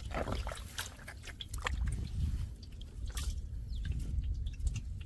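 Small splashes and drips of shallow muddy water being stirred, in scattered short bursts over a low rumble.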